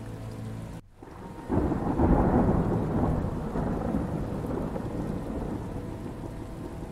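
Rain falling steadily, with a long roll of thunder that surges in about a second and a half in, is loudest around two seconds, and slowly rumbles away under the rain.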